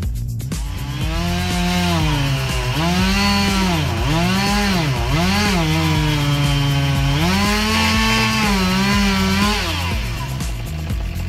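Chainsaw revving and cutting: its pitch climbs, then dips each time it bogs into the wood, several times over. It holds a lower steady pitch while working through a cut, revs up again and stops near the end.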